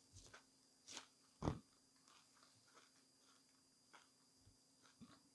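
Faint close-up chewing of a mouthful of burger: scattered wet mouth clicks and smacks, with a louder one about a second and a half in.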